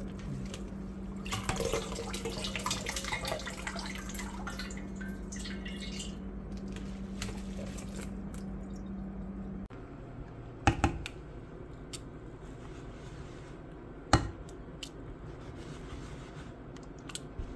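Tap water running and dripping in a kitchen sink over blueberries in a colander, over a steady hum. After a cut, a spoon knocks sharply against the pot a few times as blueberry jam is stirred.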